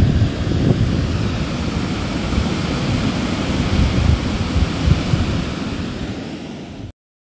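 Small lake waves breaking and washing up a sand beach, with wind gusting hard on the microphone; the sound cuts off abruptly near the end.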